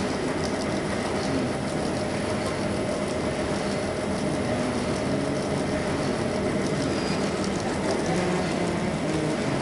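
YC520RY printing machine for paper cups running: steady, even machine noise with a faint steady tone.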